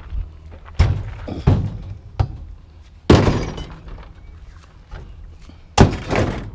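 Metal parts of a barbecue grill being pulled out and dropped: a series of knocks and clatters, the loudest about three seconds in, trailing off into a rattle.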